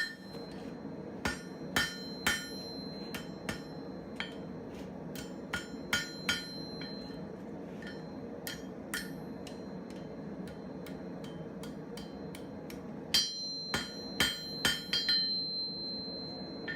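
Hand hammer striking hot 3/8-inch square steel bar over the heel of an anvil, bending it into a heart shape. The sharp blows come in uneven groups with a quick flurry near the end, and the anvil rings with a high tone after several of them. A steady low rumble runs underneath.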